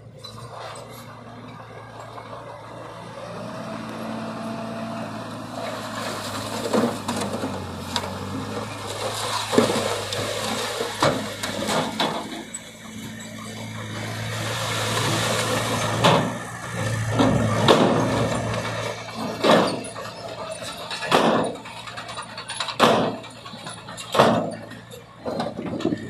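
Dump truck engine running as it raises its bed and tips out a load of soil and rocks, the load sliding out with a rushing noise. This is followed by a series of sharp knocks, about one every second and a half.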